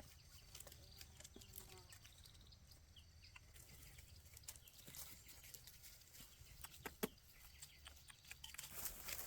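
Near silence: faint scattered clicks and rustling, with a sharper tap about seven seconds in.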